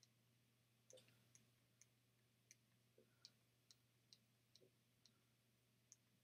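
Near silence: faint room hum with soft, irregular little ticks about twice a second.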